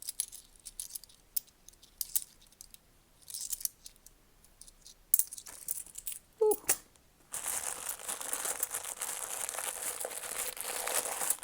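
Loose 10p coins clicking against each other as they are sorted by hand, then, from about seven seconds in, a plastic coin bag crinkling steadily as it is handled and opened.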